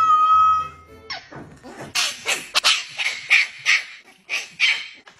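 A cat's drawn-out meow in the first second, then a puppy giving a run of about a dozen short, sharp yaps.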